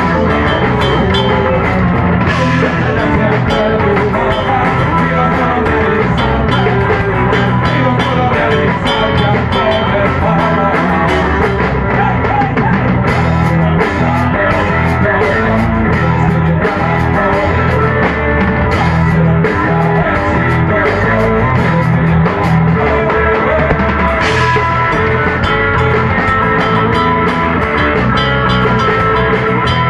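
A rock band playing live: electric guitars over a drum kit, with steady drumming and cymbals throughout.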